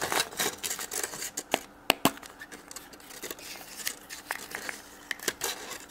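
Foil wrapper crinkling and a small plastic toy capsule from a chocolate surprise egg being handled and pried open, with a run of sharp plastic clicks and taps.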